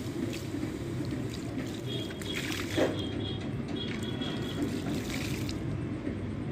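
Water pouring from a plastic jerrycan onto a steel tractor flywheel, splashing and trickling off it onto the ground.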